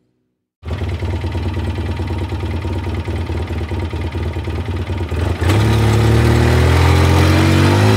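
ATV engine cutting in abruptly and running with an uneven, chugging idle, then revving up sharply a little past halfway and holding high revs, its pitch creeping slowly higher.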